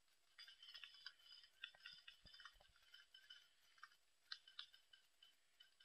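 Near silence with faint, scattered small ticks and light rustling.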